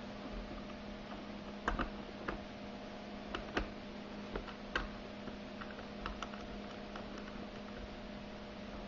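Scattered, irregular small clicks and taps of a battery terminal screw being fitted and threaded by hand onto a battery post, over a steady faint hum.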